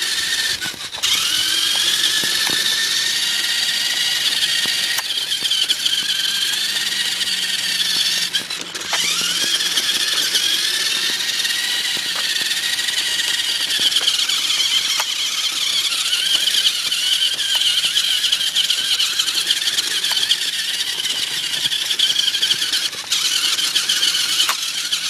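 A toy RC rock-climber truck's small electric drive motor and gearbox whining at a high pitch as it drives. It cuts out briefly about a second in and again about nine seconds in, each time spinning back up with a rising whine.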